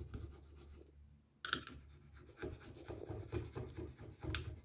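Flat screwdriver scraping old glue, softened with isopropyl alcohol, off a circuit board in short irregular strokes. A sharper scrape comes about a second and a half in and another near the end.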